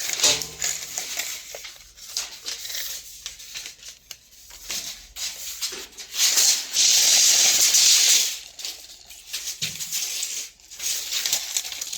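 Milwaukee tape measure being handled during a blade swap: irregular clicks and rattles of plastic and steel, with a loud rasping stretch from about six and a half to eight seconds in.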